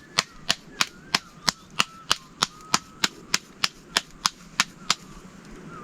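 Sharp knocks repeating evenly, about three a second, stopping about five seconds in.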